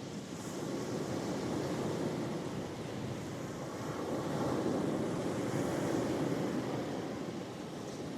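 Ocean waves breaking and washing onto the shore: a continuous surf wash that swells louder about halfway through and eases again near the end.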